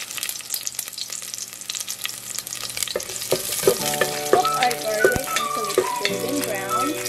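Garlic cloves sizzling and crackling in hot coconut oil in an enamel pot, with a wooden spoon stirring them and knocking a few times against the pot. Background music comes in about four seconds in.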